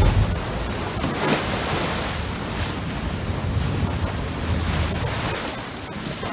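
Sea water churning and splashing in a sport-fishing boat's wake, with wind rushing across the microphone.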